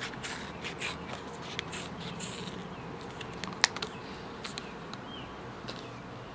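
Scissors cutting a circle out of a thin plastic yogurt lid: a run of short snips, thickest in the first half, with one sharp loud click about halfway through. A steady low hum runs underneath.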